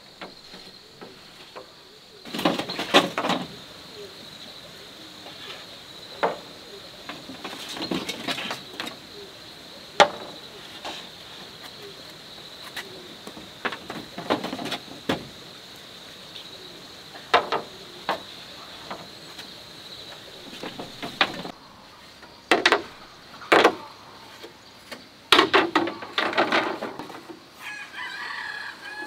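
Hollow bamboo poles knocking and clattering in scattered bursts as they are handled and laid across a bamboo roof frame, over a steady faint high-pitched whine.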